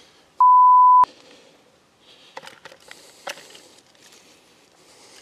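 A censor bleep: a single steady pure tone of about two-thirds of a second, starting a little under half a second in, with the rest of the sound cut out under it. Afterwards there are only faint rustles and a few soft clicks.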